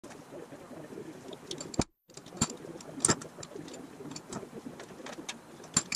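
Thin aluminium flat bar clicking and knocking against a metal grille shell as it is held and fitted around the shell's front edge, with sharper knocks near 2, 2.5, 3 and 6 seconds in. The sound drops out completely for a moment just before two seconds in.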